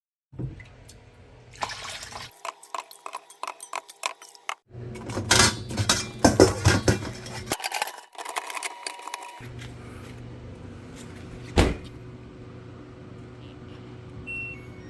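Dishes and cutlery clattering and knocking in a dishwasher, in several short spliced clips over a steady low hum, with one sharp knock about two thirds of the way through.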